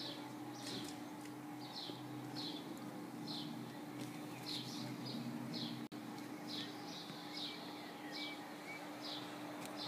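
A bird repeating a short, high chirp over and over, roughly one to two calls a second, over a faint steady hum.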